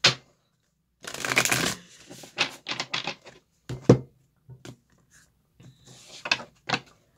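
A new Rosebud Tarot deck being shuffled by hand. A run of card rustle comes about a second in, then a string of short shuffling sounds, with a sharper tap about four seconds in.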